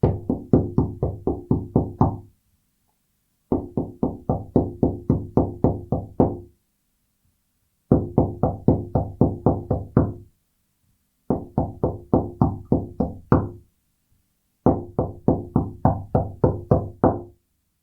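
Knuckles knocking on a wooden door in five quick rounds of about eight or nine knocks each, roughly four knocks a second, with a short pause between rounds.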